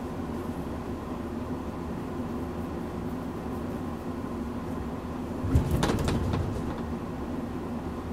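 Steady hum inside a passenger car of the Hokutosei sleeper express while it stands at a signal. About two-thirds of the way in comes a single heavy clunk and rattle that fades over about a second, typical of coupler slack running out as the locomotive starts pulling the train away.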